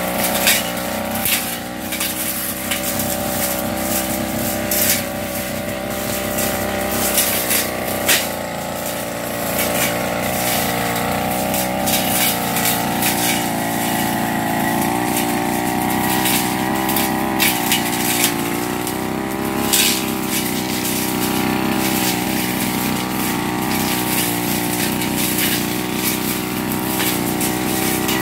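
Backpack brush cutter's two-stroke engine running steadily under load while cutting weeds, its pitch wavering slightly, with frequent sharp clicks and ticks from the cutting head striking the growth.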